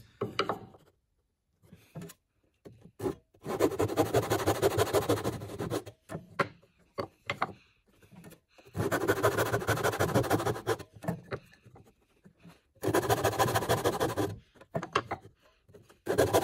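Brass-backed tenon saw cutting the shoulders of a halving joint across a piece of timber, in four bouts of quick back-and-forth strokes with short pauses between. Light knocks of the wood being set on the bench hook come in the first few seconds.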